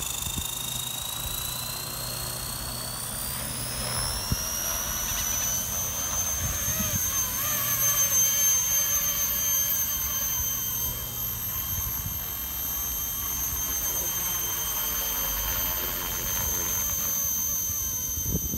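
Blade 230S V1 electric RC helicopter's high motor and rotor whine, rising in pitch over the first several seconds as the rotor spools up, then holding steady while it flies.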